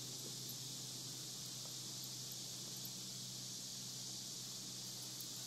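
Faint, steady, high-pitched chorus of insects over a low steady hum; no distinct sound stands out.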